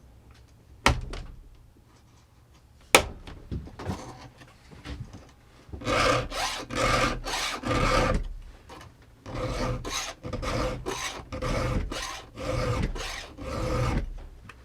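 A round file being stroked across the cutters of a small chainsaw chain to sharpen it by hand: two runs of rasping file strokes, about two a second, with the chain ringing under the file. Two sharp clicks come before the filing starts.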